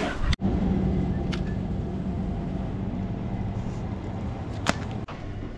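Steady low machine hum that slowly fades, with one sharp click about four and a half seconds in.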